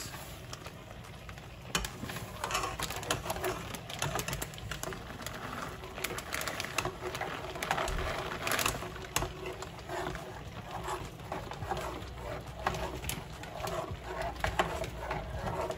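Plastic bag of shredded cheese crinkling as it is shaken out over a pot of hot milk, with a spoon scraping and knocking in the metal pot as the cheese is stirred in. It is a run of irregular light clicks and scrapes.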